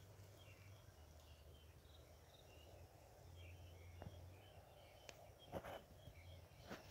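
Near silence: faint outdoor ambience with scattered faint high chirps from small birds or insects, and a few soft clicks in the last second and a half.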